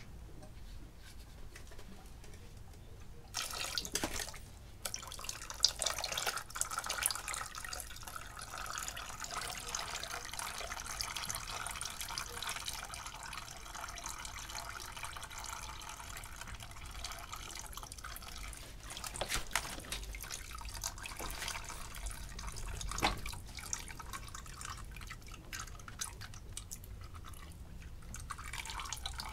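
Coolant draining from a tilted engine block, splashing and trickling in a stream into a plastic tub of liquid, starting about three seconds in. A few sharp knocks come as the block is shifted.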